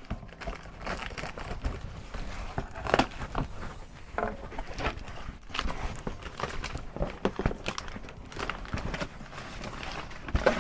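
Cardboard shipping box being opened by hand: tape cut, flaps pulled back and a shoebox lifted out, giving irregular knocks, scrapes and rustles of cardboard.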